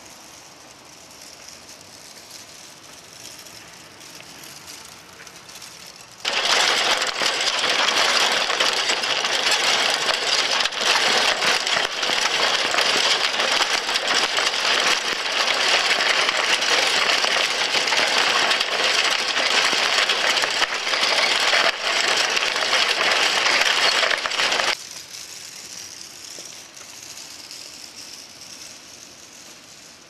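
Motor-driven kinetic sculpture rattling: small motors shake its many hanging green plastic pieces in a loud, dense, continuous clatter. The clatter starts suddenly about six seconds in and stops abruptly some nineteen seconds later, leaving only a faint steady hiss.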